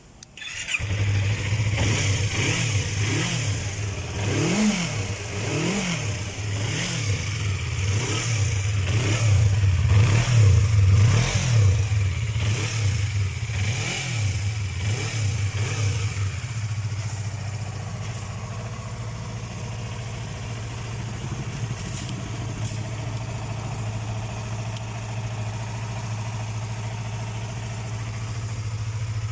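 Yamaha MT-25's parallel-twin engine starting up just after the start, then revved in about a dozen quick throttle blips, each a rise and fall in pitch. After about sixteen seconds it settles into a steady idle.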